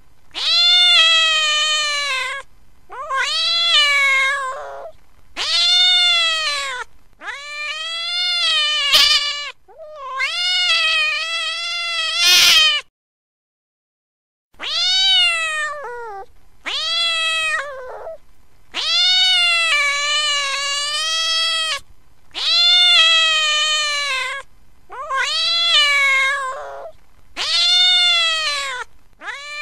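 Domestic cat meowing: a string of long, drawn-out meows, one every two to three seconds, each rising and then falling in pitch. There is a short silent break about halfway through.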